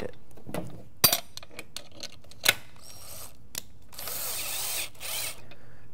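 A few sharp metallic clicks as a bolt and bracket are handled, then, about four seconds in, a cordless screwdriver with a 7/16 socket runs for about a second, driving the bolt into a locking nut on an aluminium angle bracket.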